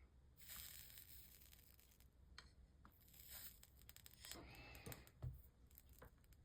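Faint hissing sizzles of a soldering iron melting solder into fluxed lead came joints, in three short spells, with a soft knock a little past five seconds in.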